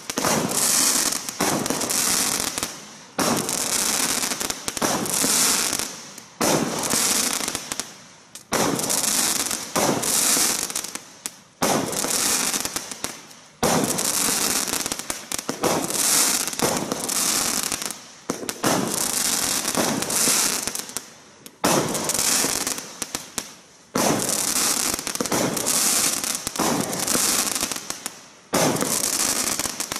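Benwell Popping Candy 25-shot firework cake firing a shot about every two seconds. Each shot breaks into a dense spell of crackling that lasts a second or two and fades before the next.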